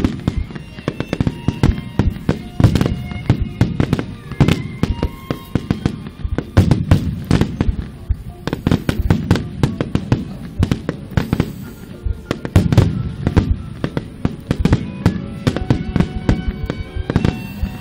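Dense barrage of aerial fireworks: many shells bursting in quick succession, sharp cracks and deep booms overlapping throughout.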